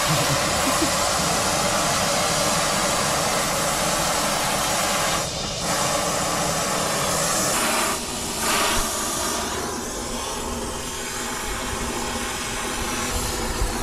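Oxy-acetylene brazing torch flame hissing steadily, used to braze a leak repair on a copper refrigerant line; the hiss dips briefly about five seconds in.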